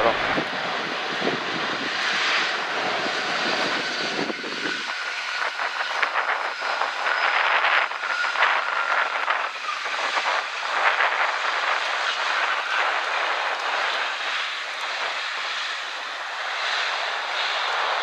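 Boeing 787-9 Dreamliner's jet engines rushing steadily as the airliner rolls out on the runway just after landing. A low rumble drops away about five seconds in, and a faint steady whine rises out of the noise for a few seconds after that.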